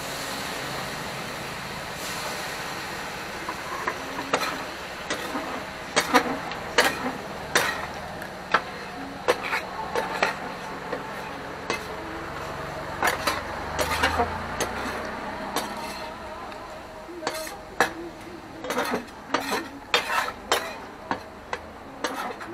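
Offal skewers sizzling on a flat iron griddle, with sharp irregular clacks and scrapes of metal tongs and a spatula on the hot plate as the skewers are turned and pushed about. The clacks start about four seconds in and are the loudest sounds.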